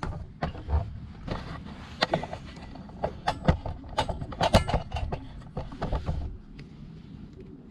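Irregular clicking and knocking of an insertion tool's nozzle being pushed along an aluminium side rail, pressing a rubber infill strip into the channel. The clatter stops about six seconds in.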